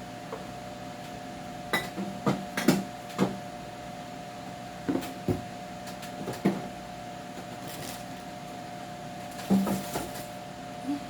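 Irregular knocks and clatters of containers and refrigerator shelf parts being handled and set down, over a steady hum.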